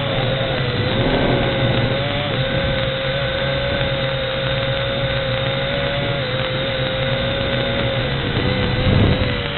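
The motors and propellers of a WLtoys V686G quadcopter whining steadily in flight, the pitch wavering a little as the throttle shifts and rising briefly near the end.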